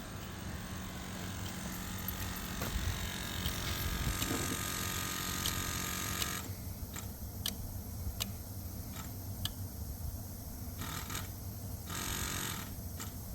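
Ford 6.0 Power Stroke diesel engine turning, a steady mechanical drone with scattered sharp clicks in the second half.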